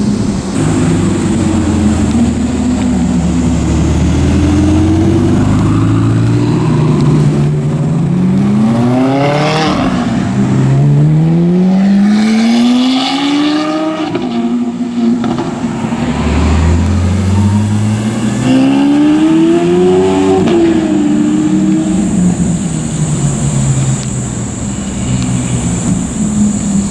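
Supercar engines revving hard as cars accelerate away, several pulls, each rising steeply in pitch through the gears with short breaks at the shifts, over a steady low traffic rumble.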